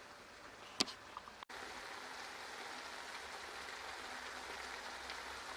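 Onion, tomato and cashew curry gravy simmering in a pan: a faint, steady hiss, with one sharp click about a second in.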